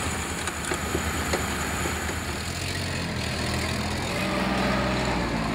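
Engines of a shock-pad mixing machine and a small site dumper running steadily with a low hum, and scattered light clicks. A second, higher engine note joins about three seconds in.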